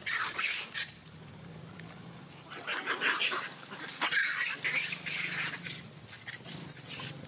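Long-tailed macaques screaming and squealing in a scuffle, in repeated sharp high-pitched outbursts.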